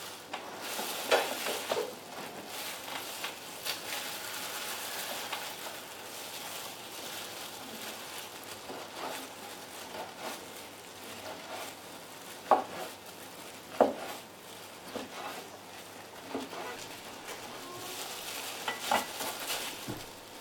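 Wide-bladed kitchen knife slicing squid on a cutting board: soft strokes through the flesh with a few sharper knocks of the blade on the board, over a steady hiss.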